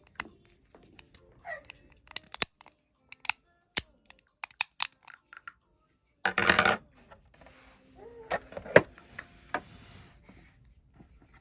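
Hard plastic toy pieces clicking and knocking as they are handled, in scattered sharp clicks, with a louder burst of clatter about six seconds in.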